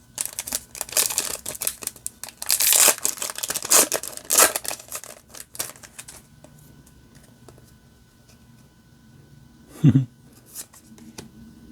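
A foil booster-pack wrapper being torn open and crinkled for about six seconds, loudest a little under halfway through, then quiet with one short low thump or vocal sound near the end.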